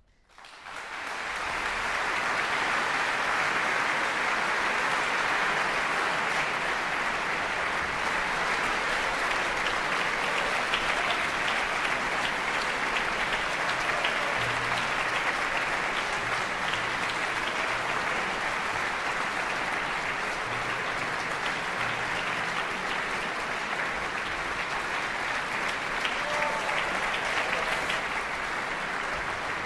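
A large audience applauding: the clapping starts suddenly out of silence and goes on steadily, easing slightly near the end.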